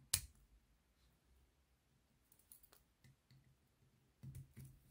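Small clicks from a Hornby Black 5 model locomotive chassis as its parts are handled and pressed into place: one sharp click just after the start, a few faint ticks in the middle, and soft knocks near the end.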